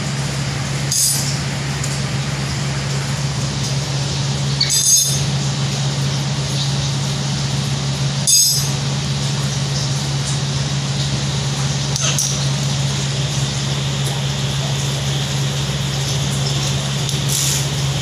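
Steady hum of a room air cooler running, with about five short, sharp high-pitched sounds scattered through it, the loudest about five and eight seconds in.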